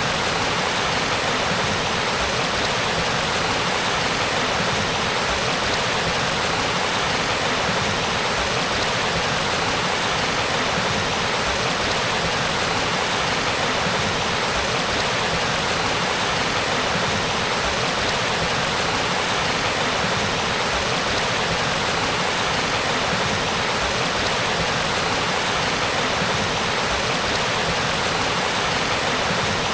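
Spring-fed stream flowing steadily, an even, unbroken rush of running water.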